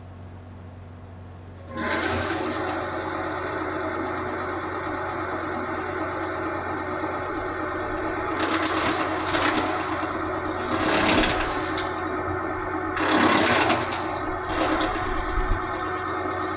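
A wood chipper's engine comes on suddenly about two seconds in and runs steadily, with several louder surges of noise in the second half.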